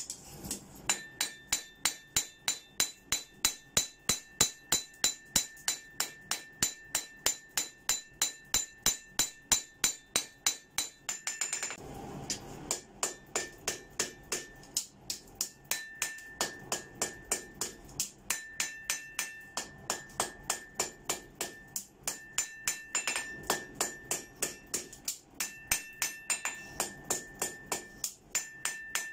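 Hand hammer striking a red-hot pattern-welded Damascus steel blade on an anvil, about four blows a second, the anvil ringing with a clear tone under the blows. A steady run for the first dozen seconds, then shorter runs with brief pauses. This is the final forging of a chef knife blade to length and shape.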